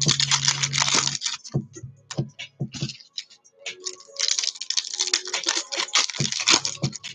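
Foil trading-card pack wrappers being torn open and crinkled, with cards clicking as they are handled. There are two long stretches of rustling, one at the start and one from about four seconds in, with scattered clicks between them.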